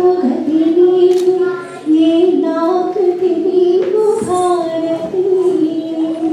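A woman singing solo through a microphone, holding long notes with melodic turns, with a short breath about two seconds in.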